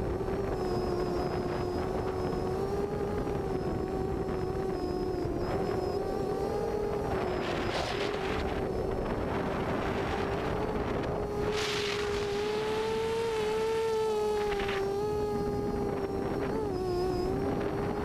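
FPV quadcopter in flight, its Cobra C2213 2000kv brushless motors spinning 6x4.5 propellers with a steady buzzing whine that rises slightly in pitch a little past the middle. A few short gusts of wind rush across the onboard microphone midway.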